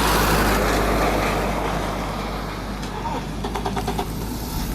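A car passing on the road, its tyre and engine noise fading away over the first couple of seconds. A brief run of fast faint clicks follows.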